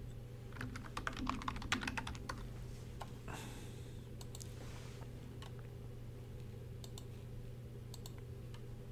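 Faint handling sounds: a quick run of light clicks in the first couple of seconds, then a couple of soft rustles and a few scattered clicks, over a steady low electrical hum.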